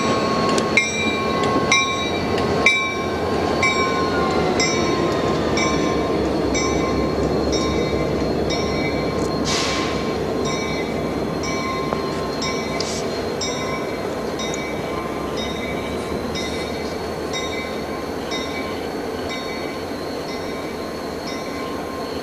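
CSX diesel-hauled train rolling past and moving away: a steady rolling rumble with evenly spaced clicks about twice a second and a faint high squeal, slowly fading.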